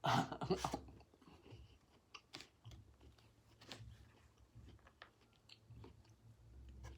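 A person chewing a mouthful of food close to the microphone, with scattered soft wet clicks and smacks. A short louder burst comes right at the start.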